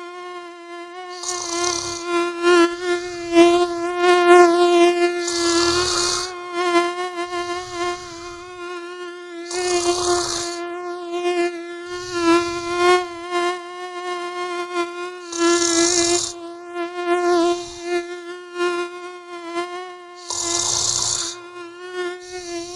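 Mosquito whine sound effect: a steady, slightly wavering buzz that runs without a break. Under it a person snores, with a breath about every two to three seconds and a louder one roughly every five seconds.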